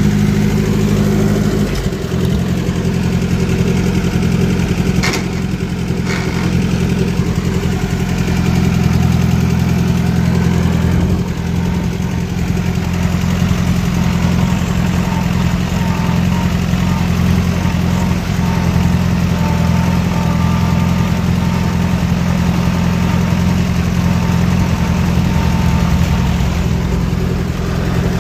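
1940 Allis-Chalmers B tractor's four-cylinder engine running steadily as the tractor is driven, heard from the operator's seat, its note shifting slightly about two seconds in.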